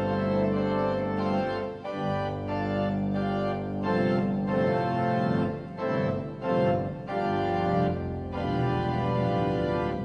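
Organ music playing full, sustained chords that change about once a second.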